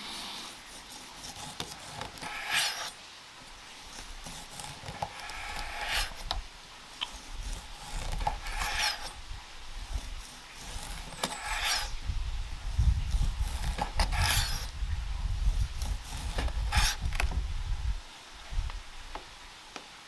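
Knife slicing through air-dried cured pork tenderloin on a wooden cutting board: a series of short rasping strokes a few seconds apart, with a low rumble through the second half.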